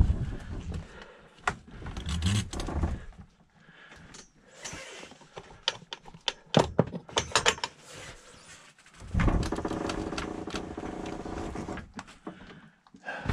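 Knocks, clicks and rattles from raising a pop-up truck camper's roof, with the gas-strut shocks taking up the weight. About nine seconds in, a steady pitched hum runs for about three seconds.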